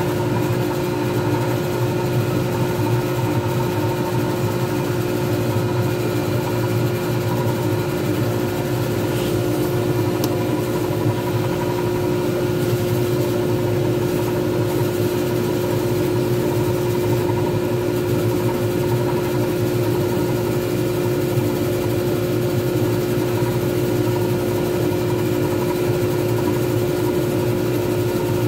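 Wood lathe running steadily at speed, turning a resin pen blank; its motor gives an unchanging hum at a constant pitch.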